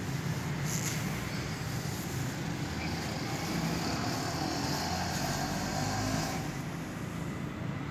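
Steady low rumble of road traffic, with a louder hiss from about three seconds in that stops just after six seconds.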